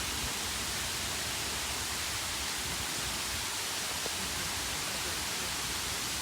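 Steady, even hiss of outdoor ambience in a park, with one faint click about four seconds in.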